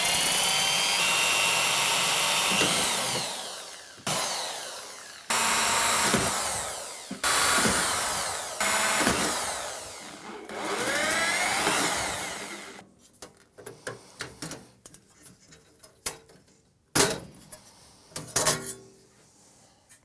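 Corded electric drill drilling out the rivets of an aluminium computer chassis's rear panel, in about six short runs, its motor whine rising and falling as each run starts and stops. After that come scattered knocks and clatter of metal parts being handled.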